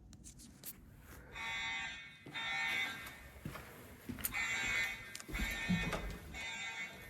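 Evacuation alarm tone from the speaker-strobes of an EST3 voice-evacuation fire alarm system, sounding in repeated short bursts grouped in threes with a longer gap between groups, the temporal-three (Code 3) evacuation pattern. A few low thumps sound a little past halfway.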